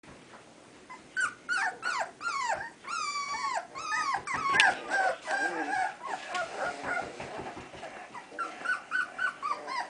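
Red poodle puppies whining and whimpering, a quick run of high-pitched calls that each slide down in pitch, starting about a second in and going on one after another.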